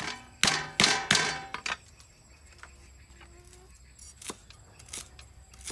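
Cleaver chopping lemongrass stalks on a wooden chopping block. A quick run of heavy chops comes in the first second and a half, then a few lighter, sharper knocks near the end.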